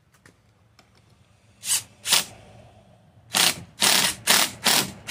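Cordless impact driver hammering in short bursts as it drives the transmission pulley guard screws back in: two bursts, then after a pause five more in quick succession.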